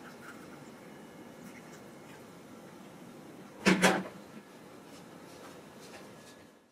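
Two quick knocks close together about four seconds in, the loudest sound here, over a faint steady room tone in a small kitchen.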